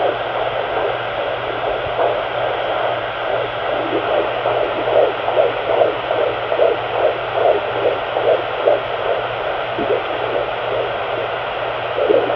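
Whooshing static from a pocket fetal Doppler's speaker as the probe searches, over a steady electronic hum. In the middle a fast fetal heartbeat comes through at about two and a half beats a second, then fades as the baby moves, and comes back near the end.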